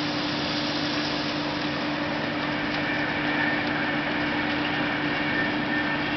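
Steady hiss of rain falling on a parked car, with a steady low hum underneath.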